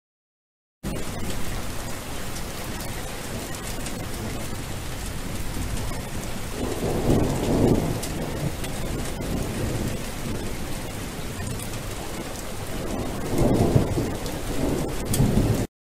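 Steady rain falling, with a low roll of thunder midway and another near the end. The sound starts and stops abruptly.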